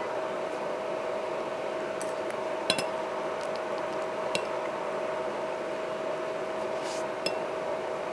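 Metal fork clinking and scraping against a ceramic plate, about half a dozen short sharp clinks with the loudest about two and a half seconds in, over a steady background hum.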